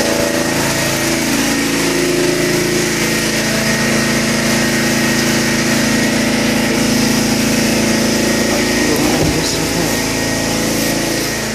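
Portable generator's small engine running steadily at a constant speed.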